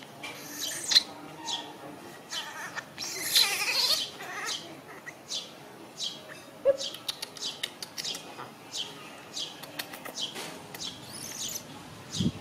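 Short high-pitched animal chirps that fall in pitch, repeating about twice a second, with a louder rustling stretch about three seconds in.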